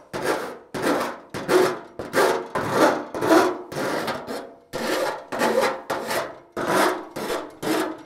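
Slapping file used as a file, scraping back and forth along the freshly snipped edge of a steel 1956 Chevy fender in quick strokes, about two or three a second. The filing knocks down the sharp edge left by the snips.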